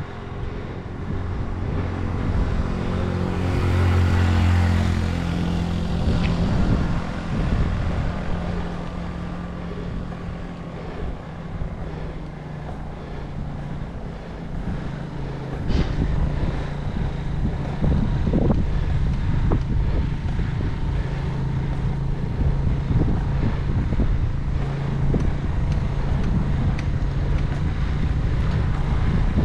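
Wind rumbling on the microphone of a moving bicycle, with a motor vehicle's engine droning along; the engine noise swells loudest about four seconds in.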